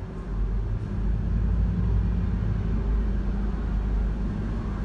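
Low, steady motor-vehicle rumble, heard from inside a car, growing louder about half a second in and then holding.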